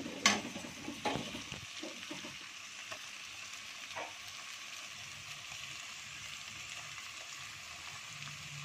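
Onions and a spice paste sizzling in hot oil in a steel kadai, with a steel spatula stirring and scraping the pan. A sharp clink of the spatula on the pan sounds just after the start, with a few softer knocks later, over a steady sizzle.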